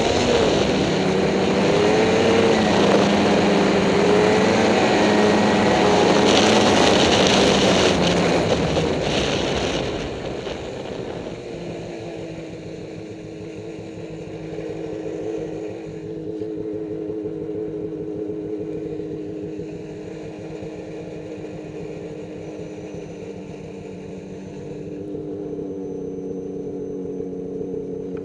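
Ski-Doo REV XP Summit snowmobile's two-stroke engine running under way on snowy trail. It pulls hard with the pitch rising and falling for about ten seconds, then eases off and runs quieter and steadier.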